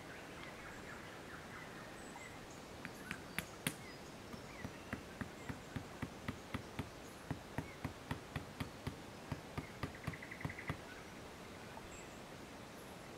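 A tent peg being hammered into the ground: a steady run of sharp knocks, about two or three a second, starting a few seconds in and stopping a couple of seconds before the end.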